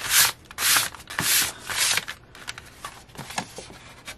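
Sheets of dyed copy paper and cardstock being handled: four quick swishes of paper sliding over paper in the first two seconds, then lighter rustles and small crinkles as a sheet is lifted and turned.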